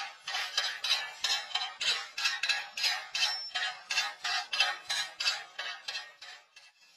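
A hammer tapping rapidly on a fresh weld bead on a steel rod, chipping off the slag: a fast run of sharp metallic taps, about four a second, stopping about six seconds in.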